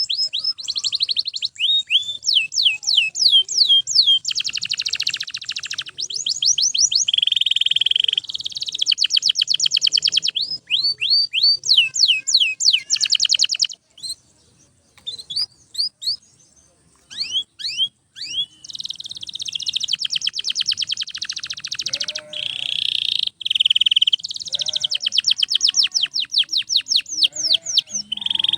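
Domestic canary singing a long, loud song of rapid repeated phrases: runs of quick downward-sweeping whistles alternating with fast buzzy trills. The song breaks off for about three seconds around the middle, then starts again.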